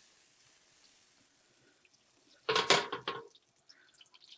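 Butter melting in a hot pan, a faint sizzle with scattered small pops and ticks toward the end. A brief clatter, the loudest sound, comes about two and a half seconds in.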